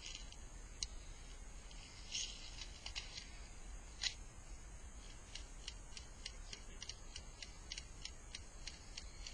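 Airsoft magazine being reloaded by hand: a few scattered plastic clicks, then a steady run of sharp clicks about three a second from about halfway through.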